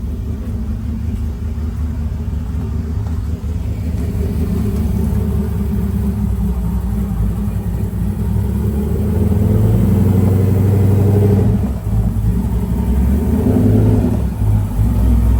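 Car engine running with its air intake off, a steady rumble that gets louder about two-thirds of the way through as the car is pulled forward, dipping briefly and swelling again near the end.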